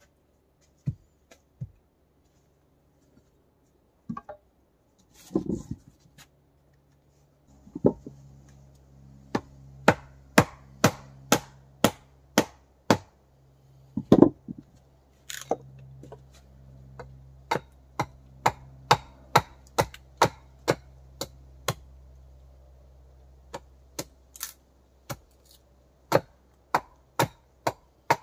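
Chopping on wood with a hand tool: a few scattered strikes, then a long run of sharp blows at about two a second with brief pauses. A faint low hum runs under the middle of the chopping.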